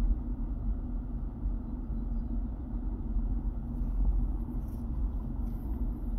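Steady low background rumble with a faint steady hum running through it.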